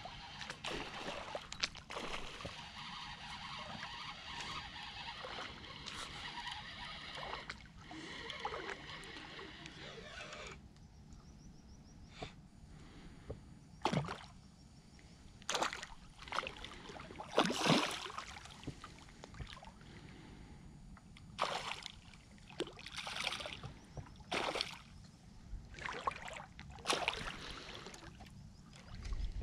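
A spinning reel being wound steadily for about the first ten seconds. Then a hooked pike thrashes at the surface near the float, making a series of sharp splashes with quiet gaps between them; the loudest comes a little past the middle.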